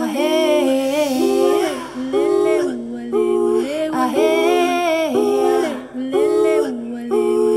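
Background music: several voices singing a slow melody together in harmony, in phrases of a second or so with short breaks between them.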